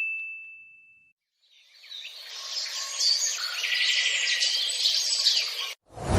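A single ding fades out over the first second. After a short gap, birds chirp and twitter for about four seconds and cut off suddenly. Just before the end, a loud, deep boom or whoosh sets in.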